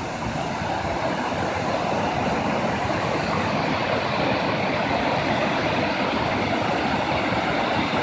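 A river waterfall rushing steadily, whitewater pouring over a wide ledge of rock.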